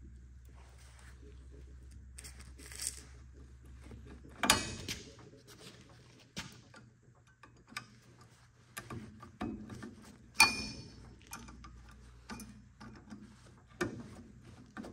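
Channel-lock pliers clinking and scraping on thin steel tubing as they grip and work back and forth the partly cut plug left where the hole saw bottomed out in a tube notcher. There are scattered metal clicks, with two sharp clanks about four and a half and ten and a half seconds in; the second rings briefly.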